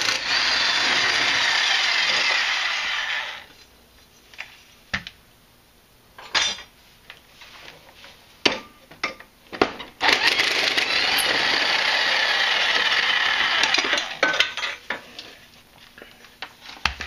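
Electric impact wrench with a 16 mm socket hammering the blade bolts off a Craftsman 42-inch mower deck, in two runs of about three and four seconds. Short metal clicks and knocks from the socket and blade come between and after the runs.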